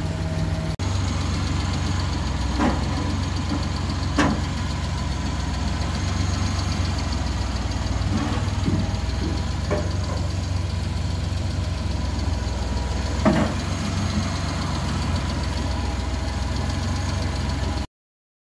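Suzuki F6A three-cylinder engine idling steadily, running again now that the shorted fuel pump has been replaced. A few short sharp clicks sound over it, and the sound cuts off suddenly near the end.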